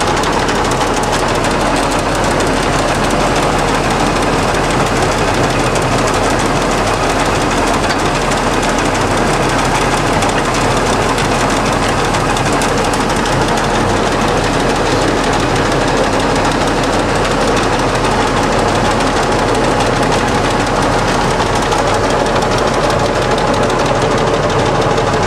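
LeBlond 1610 Servo Shift heavy-duty engine lathe running under power with its spindle turning at speed: a steady, loud mechanical running noise from the geared headstock and drive, with a gear whine over it.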